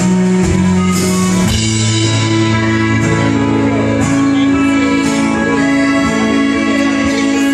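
A live rock band playing an instrumental passage, with guitar over long held chords and a few sharp strikes.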